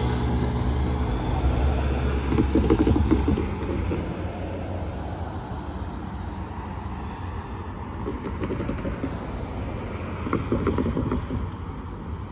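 A New Jersey Transit train's low rumble, loud for the first three or four seconds, then fading to a quieter steady rumble as it draws away after passing.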